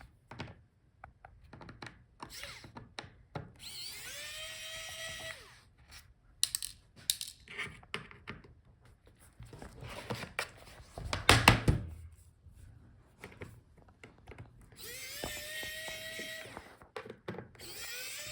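Small electric screwdriver with a T5 Torx bit backing out a laptop's bottom-case screws in three short runs, each whirring up quickly to a steady pitch. Between the runs come light clicks and, about two thirds of the way through, a loud cluster of knocks.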